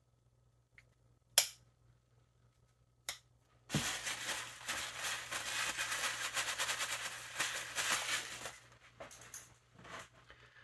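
A Sheffield traditional slipjoint pocketknife's blade snapping on its backspring with a sharp click a little over a second in, and a lighter one about three seconds in. Then about five seconds of crinkly rustling as the knife is handled in a crumpled brown wrapping, followed by a few light clicks.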